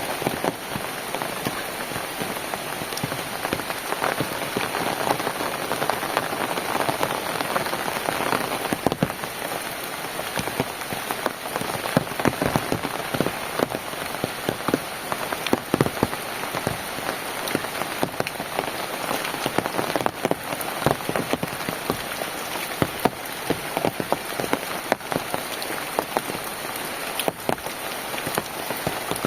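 Steady rain falling on a surface, with many individual drops striking close by as sharp separate ticks over a continuous hiss.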